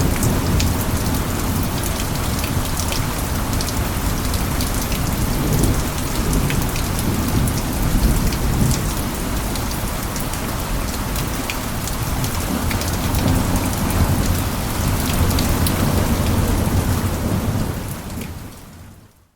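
Steady heavy rain with dense pattering drops and a low, rolling rumble of thunder underneath; the sound fades out in the last couple of seconds.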